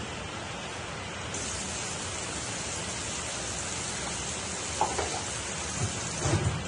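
Water poured from a plastic container into a pot of broth, a splashing hiss that starts about a second in and stops near the end, over a steady background rush. A few short knocks come near the end.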